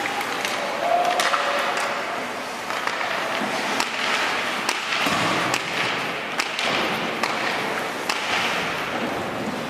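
Ice hockey play: skates scraping on the ice and many sharp, irregular clacks of sticks and puck against sticks, boards and glass.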